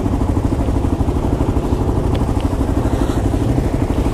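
Kawasaki KLR 650's single-cylinder four-stroke engine idling with a steady, even pulse.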